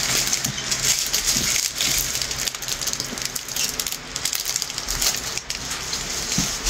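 Small plastic bags of diamond-painting drills being handled: a continuous crinkling of plastic with many small rattling clicks.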